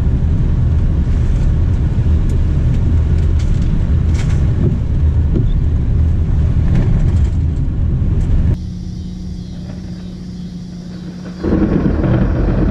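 Vehicle driving along a dirt road: a loud, steady rumble of tyres and engine. About eight and a half seconds in it drops to a quieter steady hum for about three seconds, then loud rumbling noise returns near the end.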